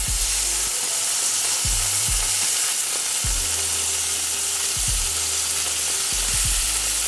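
Slices of halloumi cheese frying in oil in a hot pan, a steady sizzle at relatively high heat.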